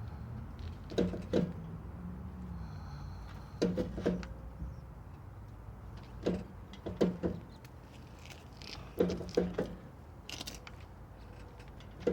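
Popping noises from a 1980 Jeep CJ5, short sharp pops in clusters of two or three every couple of seconds over a steady low hum. The cause of the popping is unknown to the owner.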